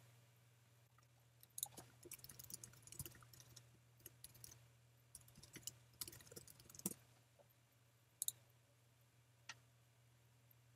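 Faint computer keyboard typing in two quick runs of keystrokes, then two single clicks near the end, over a low steady hum.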